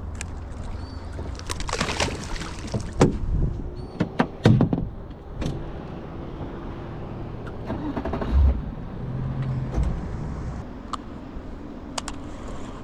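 Knocks, clicks and clatter of hands and gear against a small boat's hull and gunwale while a bass is unhooked and the rod is handled, loudest in the first half, over a steady low rumble of wind and water against the boat.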